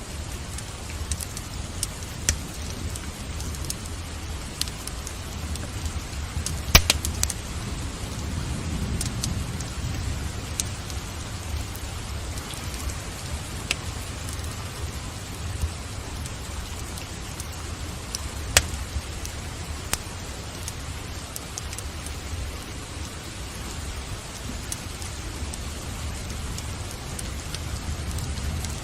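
Steady rain hiss mixed with a wood fire burning in a fireplace, with scattered sharp crackles and pops; the loudest pop comes about seven seconds in.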